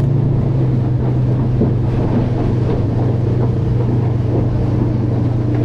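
Outboard motor of a Stabicraft 1450 boat running steadily underway, with wind on the microphone.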